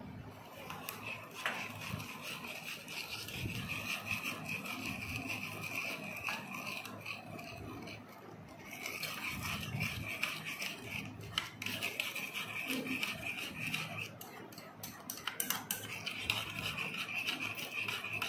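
Metal spoon stirring detergent powder and water in a bowl, making a slime activator: rapid scraping of the spoon against the bowl, with a few short pauses.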